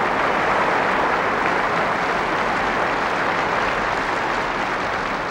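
Large stadium crowd applauding steadily, the clapping dying down near the end.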